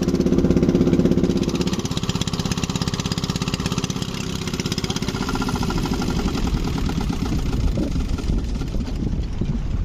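Small boat engine running steadily, a little louder in the first two seconds.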